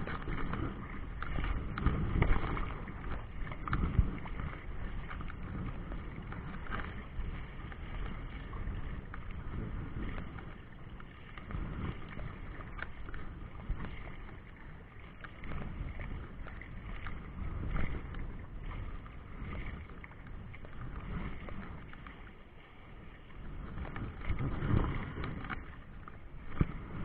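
Wind gusting on the microphone over choppy river water, an uneven rumbling rush that swells and eases every few seconds.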